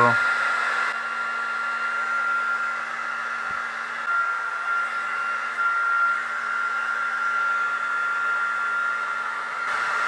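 AEG HT 5684 2200 W hair dryer running on its second heat setting: a steady rush of air with a steady high whine over it.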